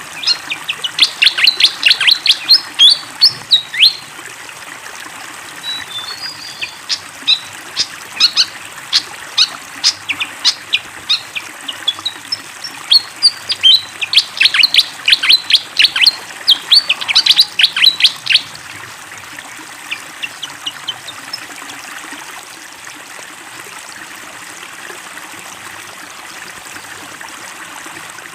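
Pied fantail singing in rapid runs of short, high chirping notes, in bursts through the first two-thirds and then falling silent. Steady running water sounds underneath throughout.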